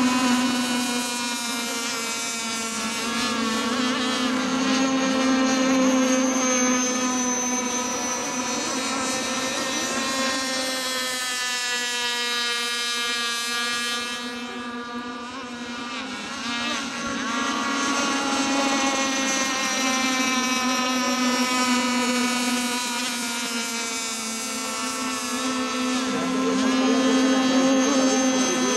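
Engine of a fast radio-controlled racing boat running flat out, a steady high buzz with a slightly wavering pitch that swells and fades as the boat passes close and runs away.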